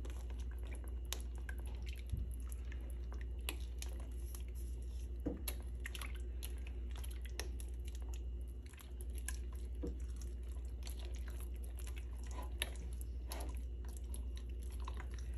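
Silicone spatula stirring and scraping a thickening, lumpy cornstarch and sugar-syrup mixture in a stainless steel pot, with irregular wet squelches and small sticky clicks as the starch sets. A steady low hum runs underneath.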